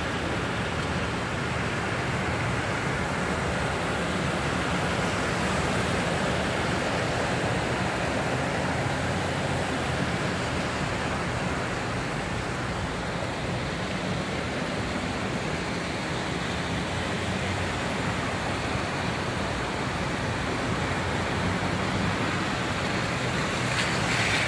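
Steady hiss of a car driving on a flooded, rain-soaked street, heard from inside the cabin: tyre and water noise with a low engine hum underneath.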